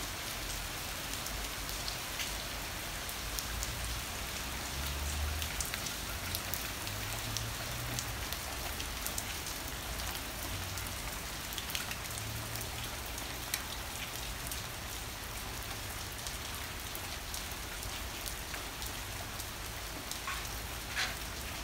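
Heavy rain pouring steadily, a dense hiss full of sharp patters from large drops, with low gusts of wind on the microphone now and then.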